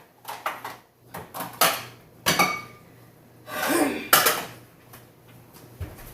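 Dishes clattering and clinking as a bowl is handled: a series of knocks, one ringing briefly, with a short hiss a little past the middle.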